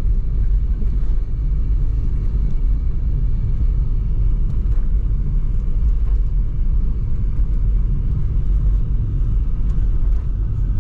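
Car driving on a country road, heard from inside the cabin: a steady low rumble of engine and road noise.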